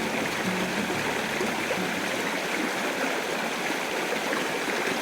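Creek water running steadily, an even rushing sound with no breaks.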